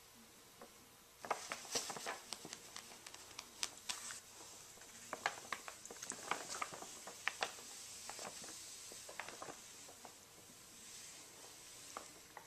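Brown paper grocery bag crinkling and rustling as cats pounce on it and crawl into it: a run of sharp crackles starting about a second in, thinning out after about ten seconds, with one last crackle near the end.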